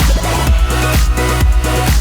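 Background electronic dance music with a steady four-on-the-floor beat, about two kicks a second.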